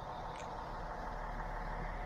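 Steady engine drone with a low hum, unbroken and growing slightly louder.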